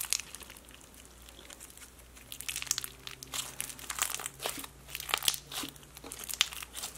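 Thick confetti-packed slime crammed with crunchy mix-ins being squeezed and pressed by hand: irregular crunching, crackling clicks, sparse at first and coming thick and fast from about two seconds in.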